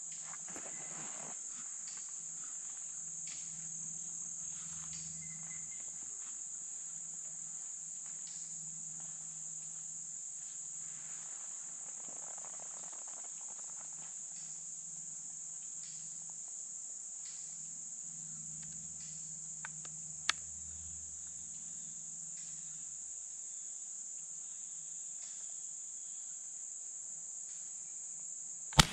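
Steady high-pitched drone of an insect chorus. A small sharp click comes about two-thirds of the way through, and a single loud rifle shot cracks right at the end.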